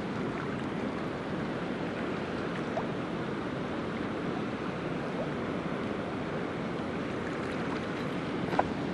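Fast river water rushing steadily over rocks, with a couple of faint clicks near the end.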